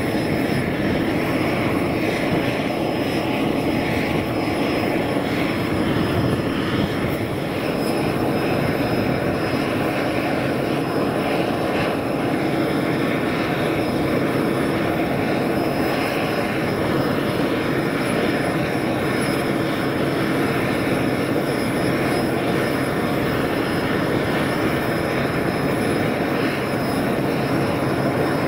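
Robinson R44 helicopter running on the ground with its main rotor turning, a steady unchanging piston-engine and rotor drone.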